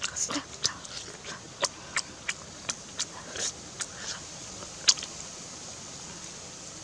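Lip-smacking and chewing as a person eats grilled catfish by hand: a run of short wet smacks and clicks, the loudest about five seconds in, thinning out after that.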